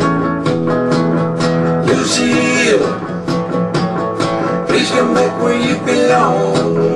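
Rockabilly song playing: a band with guitar to the fore over a steady, driving beat, with a few sliding notes.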